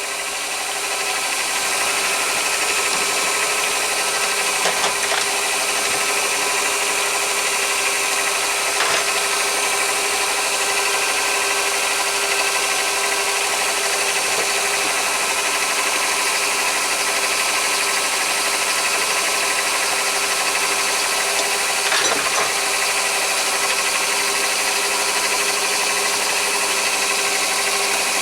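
Chinese mini lathe running at a steady speed, its motor and metal headstock gears giving an even whine, while an HSS parting blade cuts into a brass bar. A few faint ticks come through now and then.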